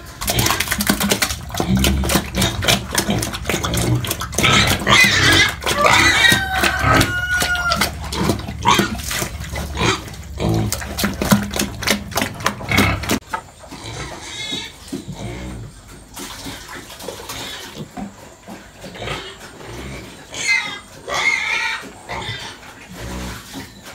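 Pigs grunting and squealing, with high sliding squeals several seconds in and again near the end, over many sharp knocks and clatters.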